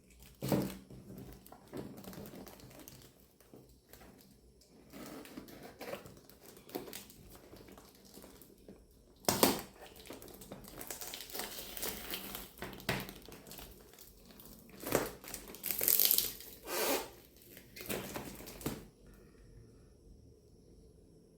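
Packaging of a tripod stand being handled and unwrapped: irregular crinkling and rustling, with sharper knocks about half a second in and at about nine seconds, and a louder spell of rustling around fifteen to seventeen seconds.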